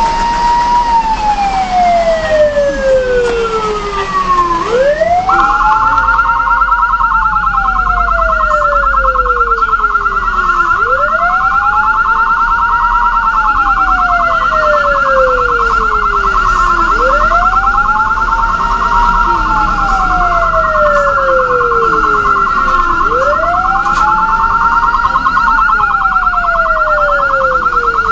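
Ambulance siren wailing: each cycle sweeps up quickly and then falls slowly, repeating about every six seconds. From about five seconds in, a second, rapidly warbling higher tone sounds steadily along with it.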